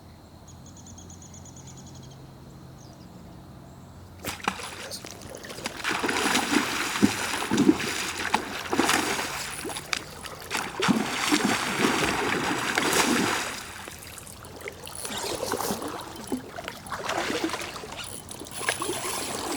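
Hooked king salmon splashing and thrashing at the water's surface as it is brought in. The first four seconds are fairly quiet; then loud, irregular splashing starts suddenly and comes in surges.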